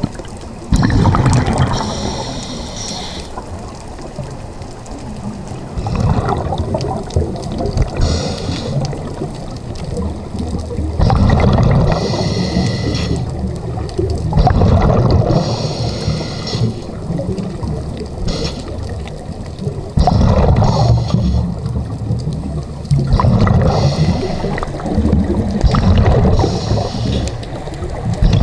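A scuba diver breathing through a regulator underwater. A hiss on the inhale and a rumbling, gurgling rush of exhaled bubbles repeat every few seconds.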